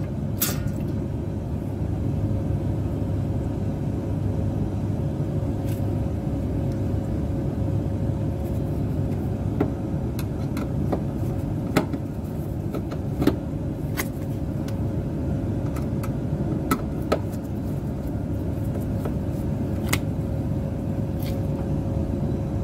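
Scattered small clicks and taps as a screwdriver and wires are worked into the extractor fan's terminal connector, over a steady low rumble with a faint steady hum.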